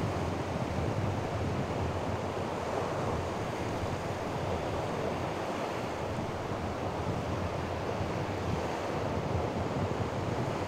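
Sea waves washing onto the shore, a steady noise, with wind buffeting the microphone.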